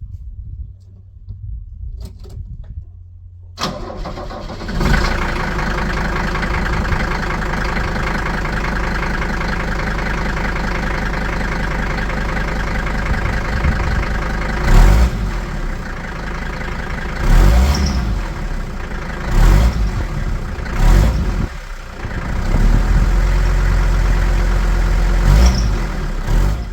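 Mercedes-Benz W123 300D's naturally aspirated five-cylinder diesel, with its complete stock exhaust fitted, starting about four seconds in and then idling. It is revved several times in short blips, with a longer rev near the end.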